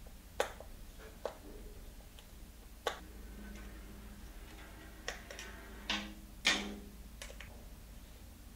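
Hex key working in a SRAM XX1 rear derailleur as its Type 2 clutch assembly is taken apart: scattered sharp metallic clicks and light clinks, about seven, the loudest about six and a half seconds in.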